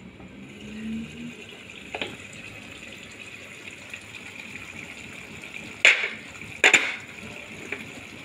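Sambal bubbling in the pot of a FANLAI automatic cooking machine, a steady hiss. A knock about two seconds in and two loud, sharp clacks near the end.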